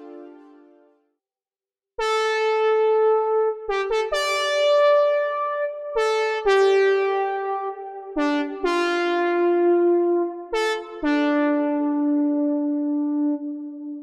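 Synapse Audio Obsession software synthesizer, an emulation of the Oberheim OB-Xa, playing a bright keyboard-like patch: a short silence, then a series of sustained chords and notes with sharp attacks, changing every second or two.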